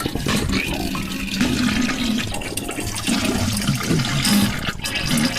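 Toilet flushing: rushing, gurgling water.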